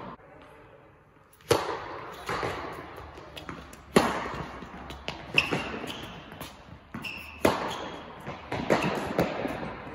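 Tennis balls struck by rackets and bouncing on an indoor hard court during a rally: about six sharp pops a second or more apart, the first about a second and a half in, each with an echo from the hall.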